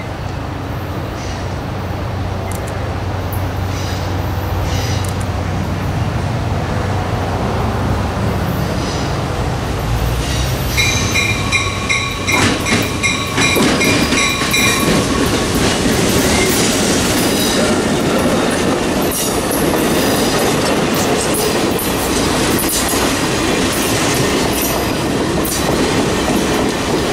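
Diesel passenger locomotive approaching and passing, its engine rumbling low and growing louder. Around the middle a bell rings in quick repeated strokes for a few seconds, then stainless-steel passenger cars roll by with wheels clicking over the rail joints.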